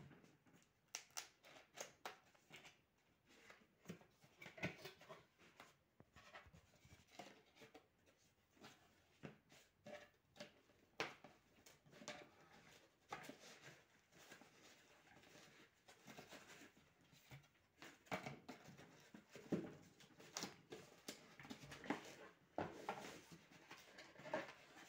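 Faint handling noise of a cardboard box: scattered taps, scrapes and rustles as the box is moved on a wooden table and its flaps and inner cardboard tray are opened.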